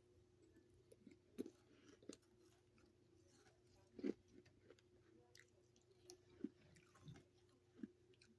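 Someone chewing a mouthful of freezer frost: soft, scattered crunches about once a second, the loudest about four seconds in, over a faint steady hum.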